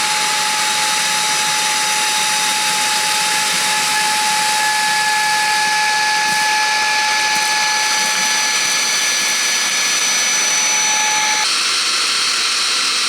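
RedTiger VAC21 rechargeable handheld vacuum running, a steady rushing hiss with a high whine. About eleven seconds in, the pitch of the whine shifts.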